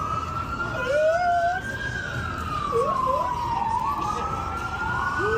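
Emergency vehicle siren on a slow wail, its pitch rising, falling over about two seconds and rising again, with a second wailing siren overlapping it about four seconds in, over steady traffic noise.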